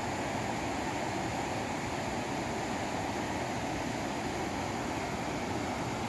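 Water rushing through the open spillway gates of a reservoir dam and pouring down the spillway, a steady, unbroken noise of heavy flowing water.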